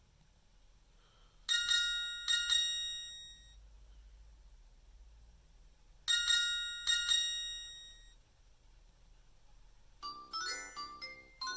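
Nokia mobile phone ringtones playing. A short chime figure of four bell-like notes, each ringing out, sounds about a second and a half in and repeats about four and a half seconds later. Near the end a different, quicker tune of lower notes begins.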